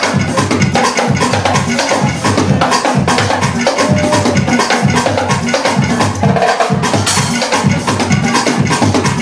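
Congas played by hand over a loud club dance track with a steady beat.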